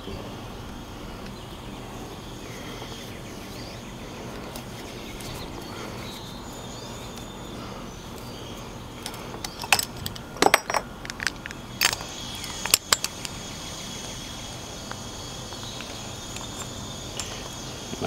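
Steady outdoor background with insects chirping high and continuously. A handful of sharp metallic clicks and clinks of handling come in a cluster about ten to thirteen seconds in.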